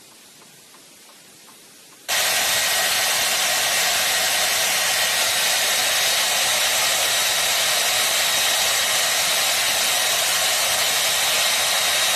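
Hand-held hair dryer running steadily: a loud, even rush of air with a thin high whine. It starts suddenly about two seconds in.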